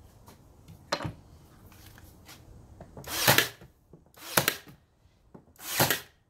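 Cordless 18-gauge brad nailer firing three times, a little over a second apart, driving brads into a wooden jamb extension. A single lighter click comes about a second in.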